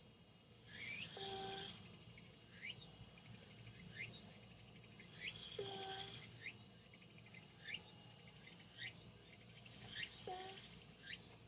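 A sleeping cat snoring softly: a short, low, even tone about every four and a half seconds. Under it runs a steady high chorus of crickets, with short rising chirps about once a second.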